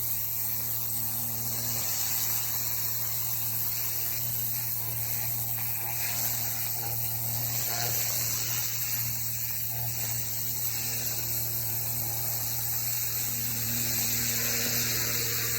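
Pressure washer running steadily: a constant low pump-and-motor hum under the even hiss of the high-pressure water jet.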